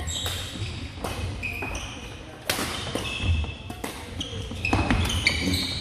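Badminton rackets striking a shuttlecock in a rally, several sharp hits, with athletic shoes squeaking in short chirps on the hardwood gym floor.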